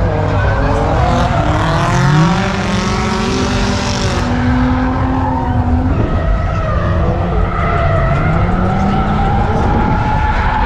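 Car engines revving up and down with tires squealing and skidding, as from cars doing burnouts or drifting, over the steady noise of a busy car meet. A hissing burst of tire noise comes between about one and four seconds in.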